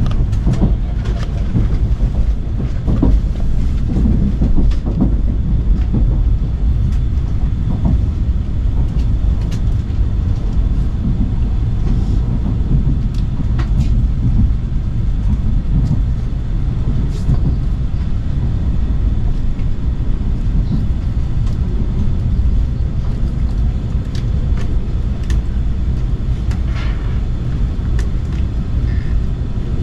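Shinkansen bullet train running, heard inside the passenger cabin: a steady low rumble with scattered faint clicks.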